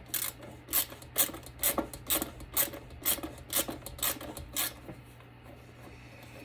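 Screwdriver turning out a rusted screw, a short scraping grate with each turn, about two turns a second, stopping after about four and a half seconds.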